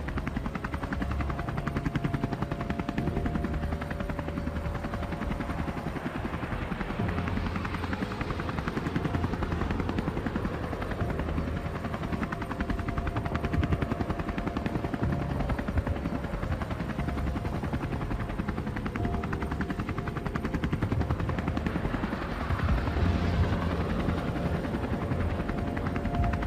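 Small quadcopter drone's propellers buzzing as it flies, the whine holding steady and then stepping up or down in pitch every few seconds.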